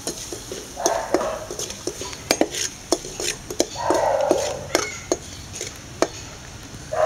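Perforated steel skimmer stirring spices in hot oil in a metal kadai: irregular sharp clicks and taps of metal on metal, with a few longer scraping strokes, about a second in and again about four seconds in. Over it runs a faint sizzle of the frying masala.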